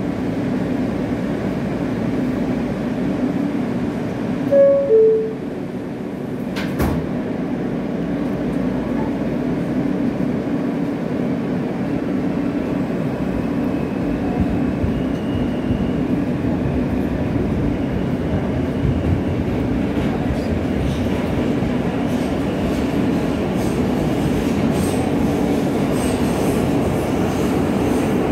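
Inside a New York subway car: a two-note falling door chime about five seconds in, then a sharp knock as the doors shut. The train then pulls out and runs with a steady rumble and wheel noise.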